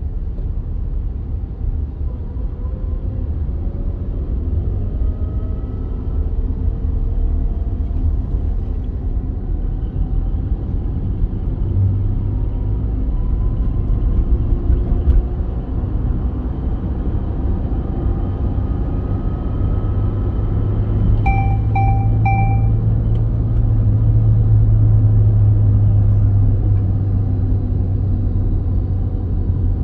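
Steady low rumble of a car driving on a motorway, heard from inside the car. The rumble swells into a louder drone in the second half. A little past the middle come three quick beeps.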